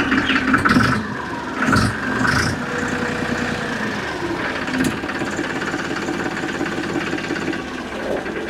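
Farmtrac 45 tractor's diesel engine running steadily at idle just after being started. It is a quiet, smooth sound, without the harsh 'farrata' rattle of an original Ford 3600.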